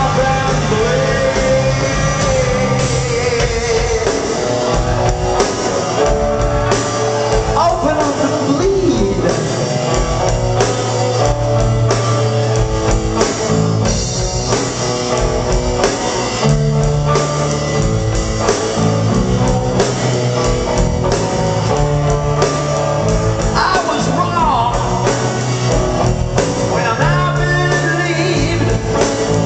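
Live rock band playing: electric guitars, bass and drums with a male lead singer, whose voice slides through long held notes at a few points. Heard as an audience recording in a large hall.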